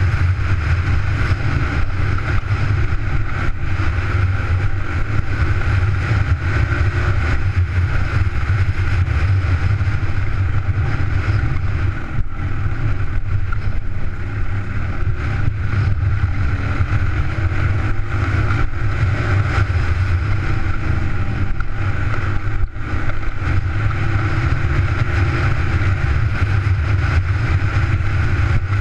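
Suzuki DR200's single-cylinder four-stroke engine running steadily as the dirt bike is ridden over a rough trail. The engine note dips briefly twice, about twelve and about twenty-three seconds in.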